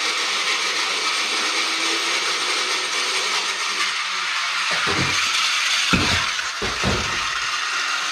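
Evel Knievel Stunt Cycle toy's launcher being cranked, with a steady mechanical whirring as the gyro-driven wheel spins up. Several low thumps come about five to seven seconds in.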